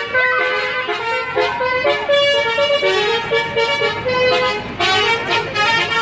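Basuri musical bus horn playing a fast melody of loud stepped horn notes, the pitch jumping up and down several times a second.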